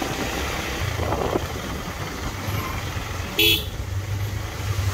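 Motorcycle running along the road with a steady low engine and wind rumble. About three and a half seconds in, a short, loud horn beep.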